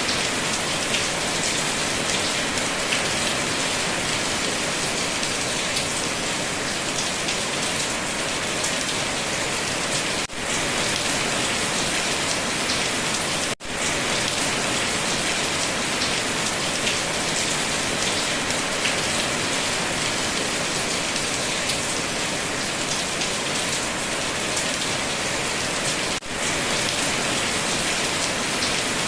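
Steady, heavy rain falling, a dense even hiss of drops. It drops out for an instant three times: about ten seconds in, at about thirteen and a half seconds, and near the end.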